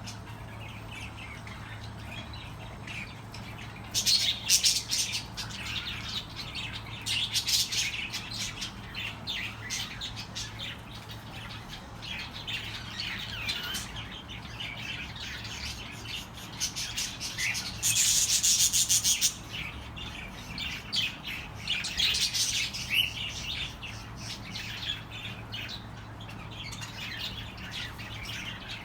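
Budgerigars chattering, with quick high chirps and squawks in irregular bursts; the busiest, loudest burst comes a little past the middle.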